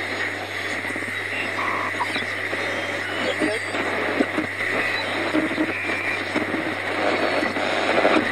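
Shortwave radio static: a dense hiss of band noise crossed by short whistles and warbling sliding tones, over a steady low hum. It cuts off suddenly at the end.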